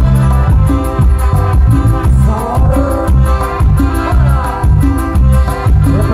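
Live band playing loud Latin dance music with a steady beat and heavy bass, with a melody line gliding up and down.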